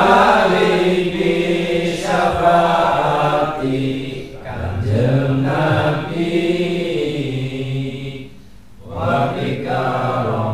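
Men's voices chanting Arabic dhikr together in long held phrases, breaking briefly for breath about eight and a half seconds in.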